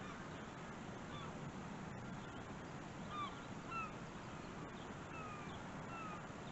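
A bird calling several times in short, squealing notes over a steady hiss of outdoor background noise.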